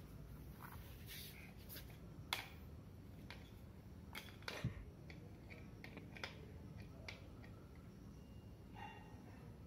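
Scattered light taps and clicks of a kitten's toys, plastic skipping-rope handles and a small ball, knocked about on a concrete floor; the two sharpest knocks come about two and four and a half seconds in.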